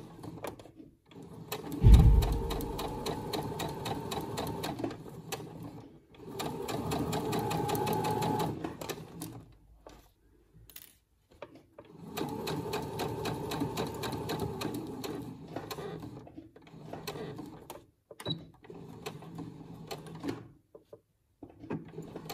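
Domestic electric sewing machine stitching a seam in three runs of a few seconds each, with short pauses between them. A loud thump as the first run starts, and scattered clicks after the last.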